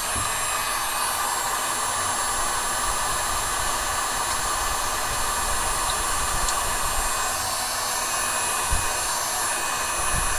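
Heat gun blowing steadily, a constant rush of hot air, used to melt solder when desoldering small components.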